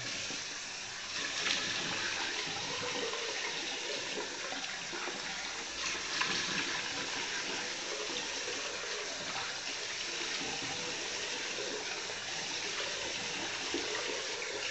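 Bathroom tap running into a sink as a man rinses his face with splashes of water, washing off the last of the shaving soap after a wet shave.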